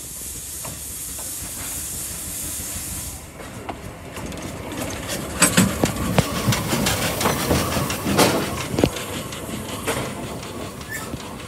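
Vale of Rheidol narrow-gauge steam locomotive No. 7, a 2-6-2 tank engine, hissing steam steadily until the hiss stops about three seconds in. It then runs slowly past close by with a run of sharp metallic clanks and knocks from its motion and the rail joints, loudest about halfway through, and fades as it moves off.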